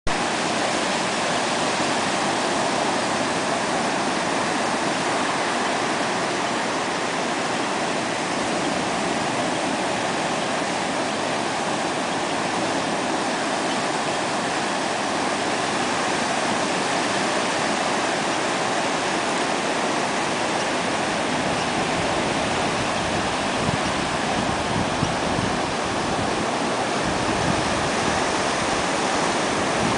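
Ocean surf on a beach, a steady, even wash of waves.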